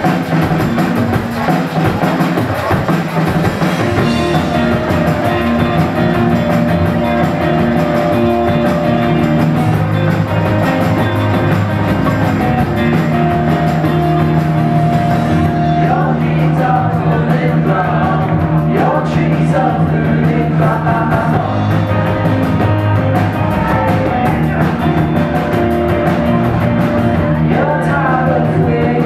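Live rock band playing electric guitars, bass guitar and drum kit, with singing over the music.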